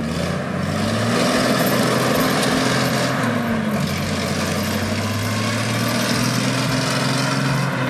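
A 1965 American LaFrance fire truck's big gasoline engine revving under load as the heavy truck slides around in snow on chained tyres, its pitch rising and falling.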